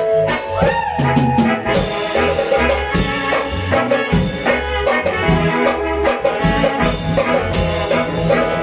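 Instrumental band music in Michoacán Tierra Caliente style, with brass and drums playing a steady beat and no singing.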